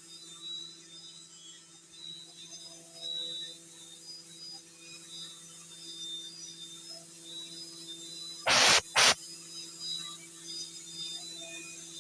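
CNC milling machine running with a steady hum and a high whine, with faint intermittent chirps over it. About eight and a half seconds in come two short, loud hissing blasts, the second briefer.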